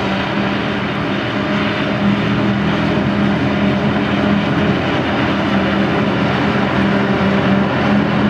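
Claas Jaguar 890 self-propelled forage harvester running under load as it picks up and chops grass for silage, a loud, steady drone of engine and chopping gear, with the tractor hauling the trailer alongside.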